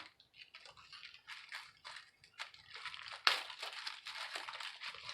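Plastic packaging crinkling and rustling in irregular bursts as small tools are handled, with a sharper, louder crackle about three seconds in.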